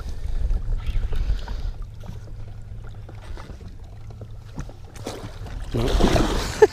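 Wind on the microphone and water against a fishing boat's hull. About six seconds in comes a burst of splashing as a landing net is plunged into the water after a hooked musky.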